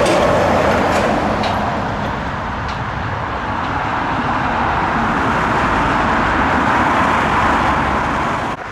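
Jet airliner engine noise, a loud, steady rushing sound that eases slightly about two seconds in and drops off sharply near the end.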